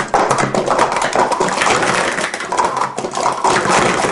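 Plastic sport-stacking cups clattering in rapid, dense clicks as they are upstacked and downstacked at speed.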